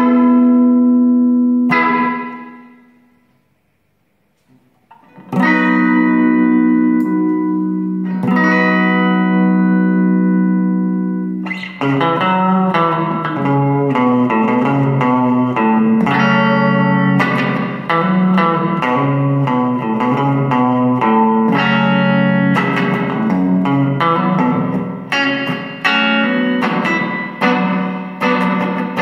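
Les Paul-style electric guitar played through a Mooer Shimverb reverb pedal into a Roland CUBE-ST amplifier. A ringing chord fades out to silence about four seconds in, then two long sustained chords follow. From about twelve seconds a steady run of quickly picked notes plays.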